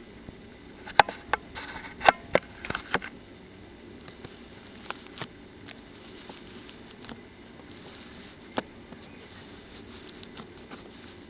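Scattered sharp clicks and taps, with a short burst of rustling about one to three seconds in, then only occasional faint ticks over a low steady hiss: handling noise close to the microphone.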